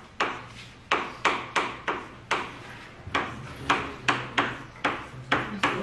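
A run of sharp, irregular taps or knocks on a hard surface, about two or three a second, each ringing briefly.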